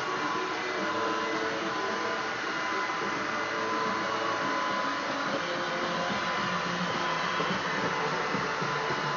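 Shark IX141 cordless stick vacuum running steadily: a constant rush of air with a high motor whine.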